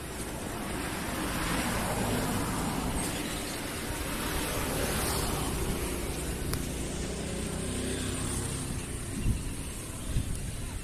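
Road traffic: vehicles passing by with a steady rumble, swelling and fading twice in the first half.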